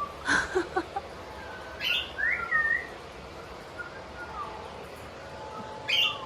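Pet bird calling: a cluster of short sharp chirps in the first second, a louder call that slides up then down in pitch about two seconds in, and another short chirp near the end.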